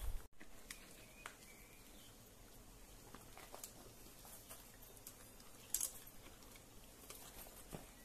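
Faint scattered clicks and rustles of saddle tack being handled on a horse, with one sharper click about six seconds in.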